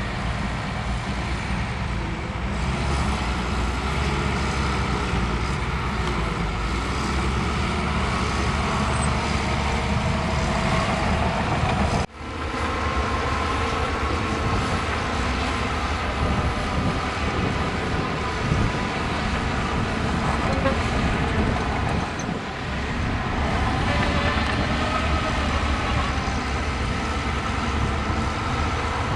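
Heavy diesel earthmoving machinery running steadily, with the sound dropping out for an instant about twelve seconds in.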